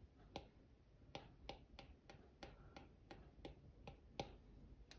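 Faint, irregular clicks of a 2nd-generation Apple Pencil's tip tapping on the glass of an iPad Pro screen as short, light strokes are drawn, about two or three a second.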